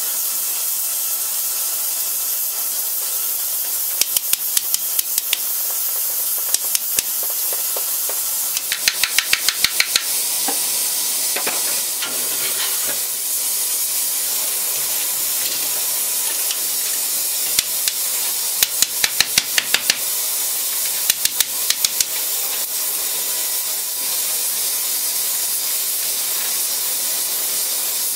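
Steady hiss of water spraying onto a hot iron wagon tire and flashing to steam as the tire is quenched and shrunk onto a wooden wheel. Several short runs of quick, sharp clicks come through the hiss.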